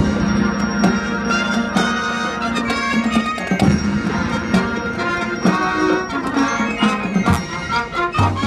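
A marching wind band playing, with brass and woodwinds over drums. The music comes in suddenly and loud at the start, with regular drum strikes under held chords.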